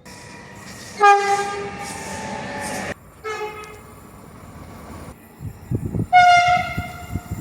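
Train horn sounded three times: a long blast of about two seconds, a short blast, then a higher-pitched blast near the end. A low rumble builds under the last blast.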